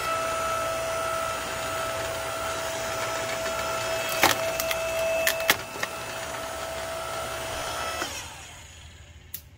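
Ryobi compact electric log splitter running, its electric motor and hydraulic pump giving a steady humming whine as the ram pushes a log into the wedge. Sharp cracks of the wood splitting come about four seconds in and again about a second later. The motor stops about eight seconds in.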